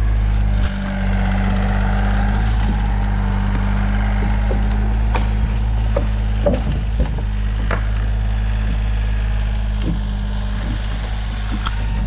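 Bobcat compact tractor's engine running steadily, with scattered sharp snaps and cracks of twigs and branches breaking.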